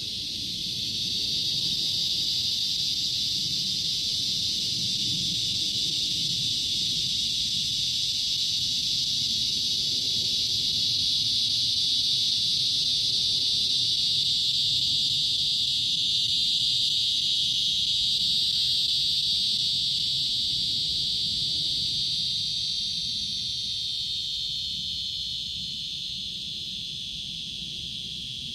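Steady insect chorus: a dense, unbroken high-pitched buzz that swells in over the first couple of seconds and slowly fades near the end, over a low background rumble.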